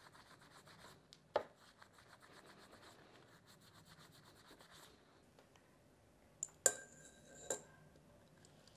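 Faint rubbing of a shop rag wiping down a steel transmission pinion shaft. Near the end come a few sharp metal clinks with a brief ringing, as a gear and its needle bearing are slid onto the shaft.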